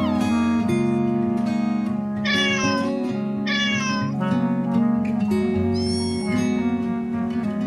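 Three cat meows, about two, three and a half and six seconds in, the last one higher-pitched, over steady background music with plucked guitar-like notes.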